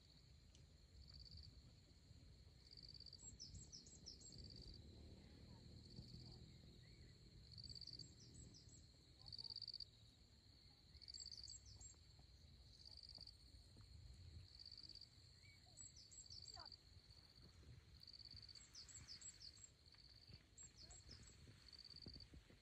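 Faint rural ambience: a high-pitched animal call repeats about every second and a half over a steady high tone, with a low rumble underneath.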